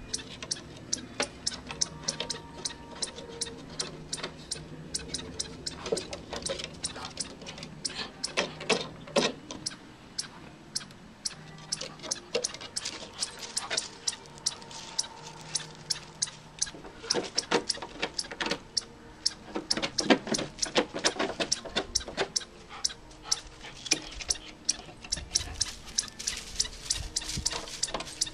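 Small dog scratching and clawing at the planks of a wooden boardwalk: a fast, irregular run of sharp clicks and scrapes that goes on the whole time, as it digs after a chipmunk hiding beneath.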